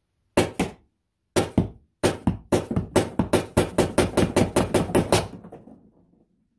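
PepperBall VKS launcher firing pepperballs into a cushion inside a cardboard box: two shots, then two more, then a rapid string of about eighteen shots at roughly five a second that stops suddenly.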